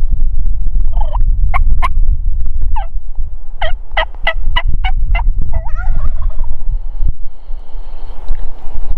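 Merriam's wild turkey gobbler gobbling from the roost at dawn: a rapid rattling run of notes in the middle, with shorter call notes before and after. A steady low rumble runs underneath.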